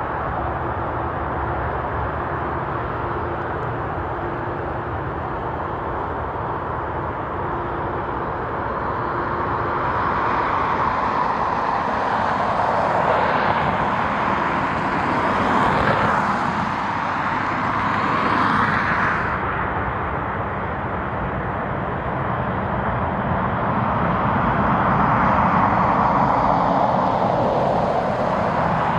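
Jet airliner engines heard as an aircraft passes, a broad rushing noise with sweeping pitch changes that swells about midway and again near the end.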